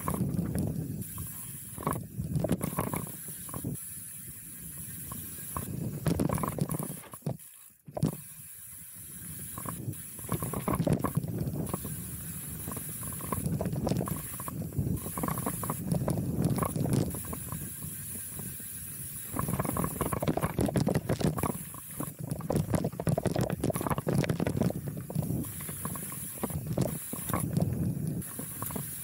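Steel hardtail mountain bike (Chromag Rootdown) rolling fast down a dirt singletrack: tyres crunching over dirt and roots, with the chain and bike rattling and clicking over bumps and wind rushing over the camera microphone. The sound briefly drops almost to nothing about eight seconds in.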